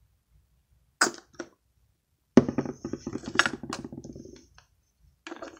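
Plastic lotion bottle squeezed out upside down over a small glass bowl. There is a sharp click about a second in, then a couple of seconds of rapid sputtering as lotion and air squirt from the nozzle. A few knocks follow as the bottle is set down on the table.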